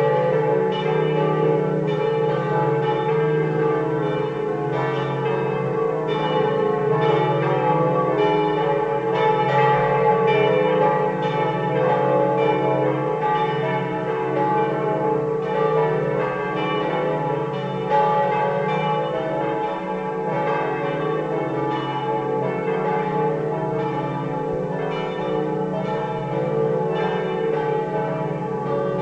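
Several bronze church bells, cast or recast by the Pruneri foundry of Grosio, swinging full-circle (a slancio) and ringing together. Their strokes overlap continuously into one steady, dense peal of many tones.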